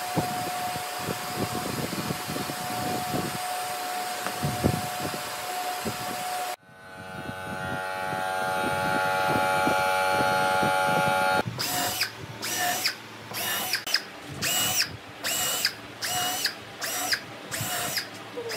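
Shop vacuum running steadily with a faint whine, its nozzle knocking now and then as it draws sanding dust off a wooden tabletop. After a sudden cut, a power tool swells up to a steady run, then starts and stops in short bursts, about two a second.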